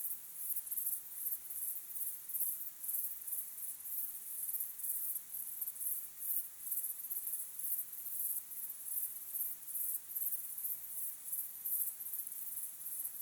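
Crickets chirping in a steady chorus of high-pitched pulses, repeating evenly a few times a second.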